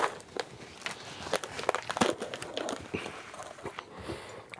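Snack packaging being handled as Cheez-It crackers are taken out: scattered crinkles and light clicks.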